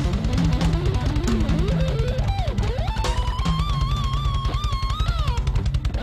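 Live band music from a mor lam troupe's stage band, with a steady drum-kit beat and electric guitar. About halfway through, a lead line slides up and holds a long wavering high note.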